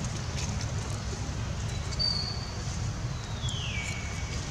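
Baby long-tailed macaque giving two high, thin squeaks: a short one about two seconds in, then a longer one that slides down in pitch and holds. A low rumbling noise on the microphone runs underneath.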